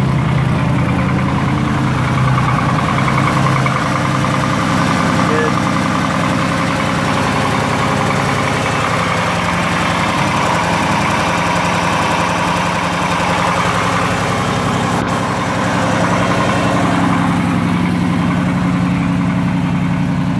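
Carbureted engine fed by an Edelbrock 1406 four-barrel carburetor with electric choke, idling steadily after a cold start on a freezing morning: a good-running carburetor.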